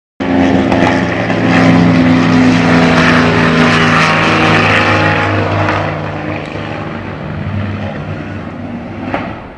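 Propeller aircraft engine running hard with a steady drone and rushing noise. It starts abruptly and eases off somewhat after about six seconds.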